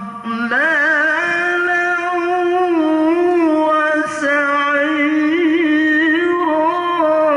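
Adult male qari reciting the Qur'an aloud in the melodic tilawah style into a microphone. He holds a long, high, sustained line with quick wavering ornaments, which starts about half a second in and breaks briefly about four seconds in.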